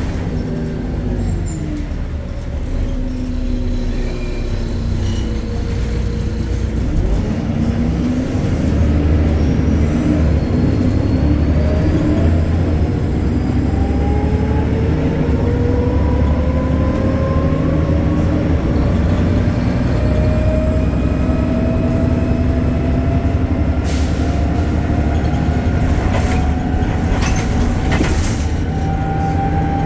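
BredaMenarini Avancity Plus city bus with its Deutz diesel and ZF automatic gearbox, heard on board: the drivetrain drones low while a whine falls as the bus slows in the first few seconds, then rises steadily as it pulls away and gathers speed. A few short sharp noises come near the end.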